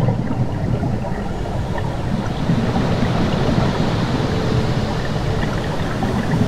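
A steady, low rushing noise like moving water, with faint scattered ticks above it.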